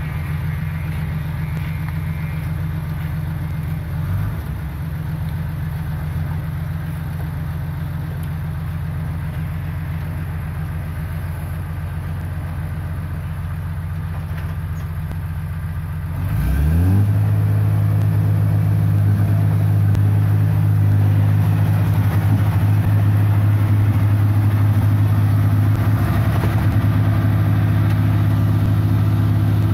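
New Holland Clayson 1545 combine harvester's engine running steadily at low speed, then revving up a little past halfway and holding at a higher, louder speed.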